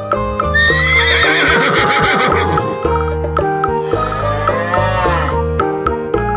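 Cheerful children's background music with a horse whinny sound effect laid over it, a long wavering call about half a second in, followed near the middle by a second, shorter animal call that rises and falls.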